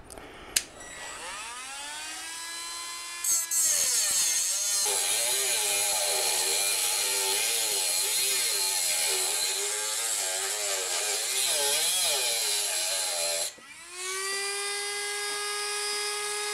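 Dremel-type rotary tool with a thin abrasive cutoff wheel spinning up to a high whine and cutting through a metal snowmobile tunnel support bracket, the pitch wobbling as the wheel loads in the cut. It stops for a moment near the end, then starts again and runs freely at a steady whine.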